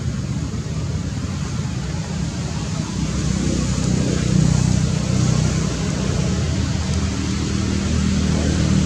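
Steady low rumble with an even hiss over it, a little louder from about three seconds in.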